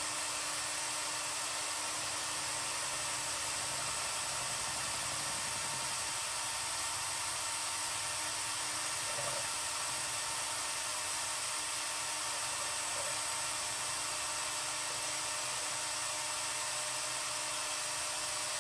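A running electric motor gives a steady whirring hiss with a faint hum, holding level throughout.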